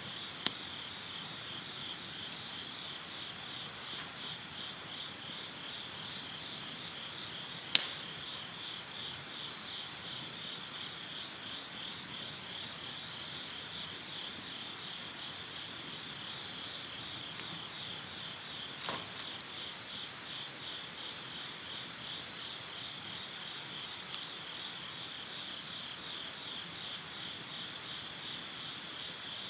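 Insects chirping steadily in a fast, even pulse, a high-pitched chorus, with a campfire's burning wood giving a few sharp pops, about half a second, eight seconds (the loudest) and nineteen seconds in.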